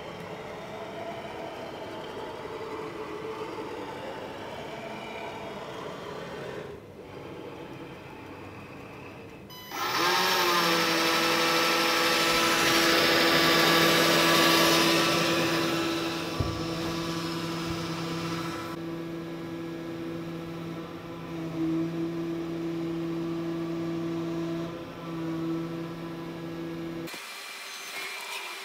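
Carvera benchtop CNC milling machine at work: quieter mechanical whirring at first, then about ten seconds in the spindle spins up with a short rising whine and holds a steady whine under loud hissing noise as the cutter mills a foam block. The hiss eases partway through, and the sound drops to a quieter hum near the end.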